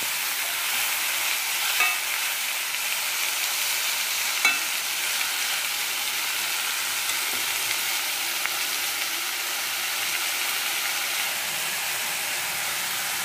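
Masala-coated chicken pieces sizzling in coconut oil in a steel kadai, a steady hiss. A steel spatula clinks against the pan about two seconds in and again a couple of seconds later.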